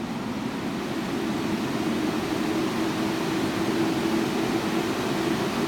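Four spray-booth exhaust fans spinning up and running: a steady rush of air with a low hum, growing louder over the first second or two and then holding steady.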